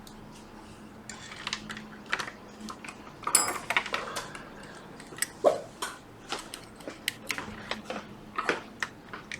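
Scattered light clicks, taps and a brief rustle of small electronic parts and tools being handled on a repair bench, irregular like typing.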